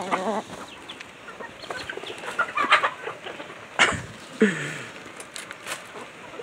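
A flock of chickens clucking and calling while they peck at scattered grain, with short calls here and there, a low falling call about four seconds in, and a sharp knock just before it.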